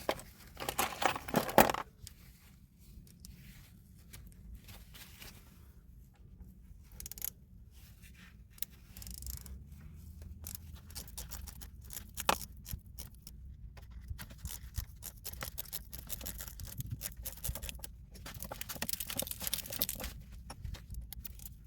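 Scattered scrapes, clicks and rustling of hand tools being worked on drain pipe fittings, over a low steady rumble, with louder stretches of rustling near the start and near the end.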